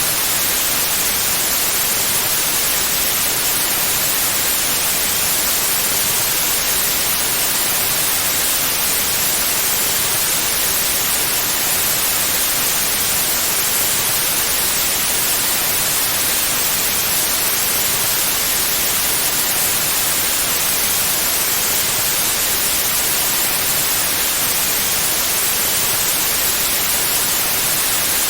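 Continuous synthetic white noise, a steady even hiss that is strongest in the treble, with no changes.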